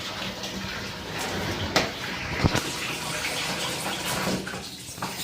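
Water running steadily in a washing machine tub, with a few sharp knocks in the first half.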